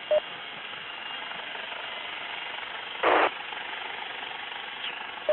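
MH-65 Dolphin helicopter in a hover, heard through the crew's intercom as a steady rushing noise. A short, loud burst of hiss comes about three seconds in, with a brief blip just after the start.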